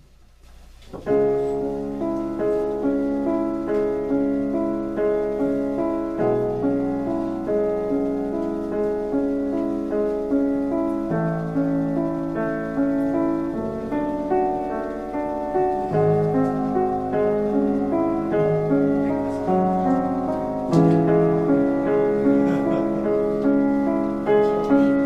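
1872 Rittmüller upright piano being played: a steady flow of chords and broken-chord notes that begins about a second in.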